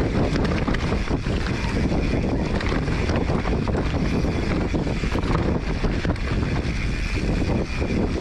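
Wind rushing over the microphone and tyres rolling over dirt as a Polygon Siskiu T7 mountain bike descends a singletrack, with a steady rumble and frequent small rattles and knocks from the bike over bumps.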